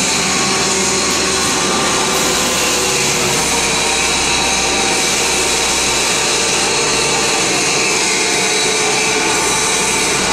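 Paper egg tray making line running: a loud, steady mechanical drone of pumps and a vacuum blower, with a strong hiss and several steady whining tones over it.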